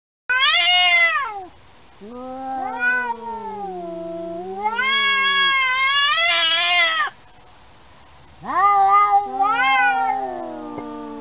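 Two cats yowling at each other in a territorial standoff: long drawn-out wails that rise and fall in pitch, one voice low and one higher, overlapping and taking turns, with short pauses about two and eight seconds in.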